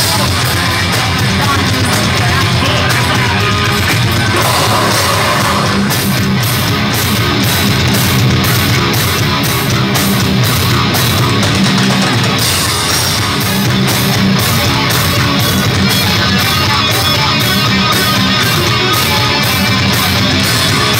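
A heavy metal band playing live and loud, with distorted electric guitars, bass and drums. From about six seconds in, the cymbals beat steadily about three times a second.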